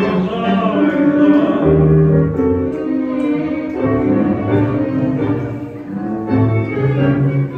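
Tango orchestra music with sustained bowed strings carrying the melody.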